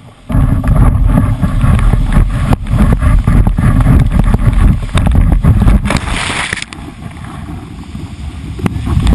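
Fast whitewater rushing around an open canoe, with wind and spray buffeting the microphone in heavy low thumps. The sound cuts in abruptly. A hissing burst of splashing spray comes about six seconds in, and it eases somewhat after that.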